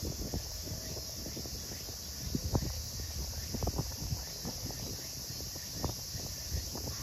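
Steady high-pitched chorus of summer insects, with irregular low thumps and rumbles of wind buffeting the microphone.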